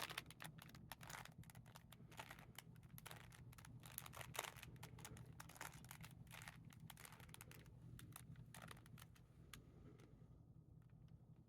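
Rubik's Cube layers being turned by hand: a faint, irregular run of quick plastic clicks and rattles.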